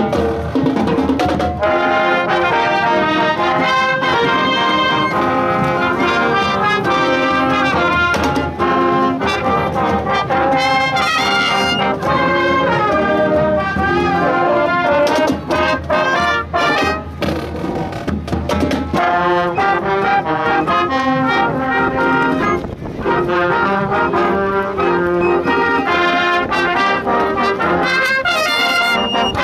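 A junior high school marching band playing: trumpets, trombones and sousaphone with saxophones and clarinets, over bass drums and percussion.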